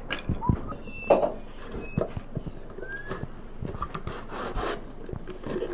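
A small box being handled as a part is pushed and worked onto it: irregular rubbing and scraping with scattered light knocks and a few short squeaks.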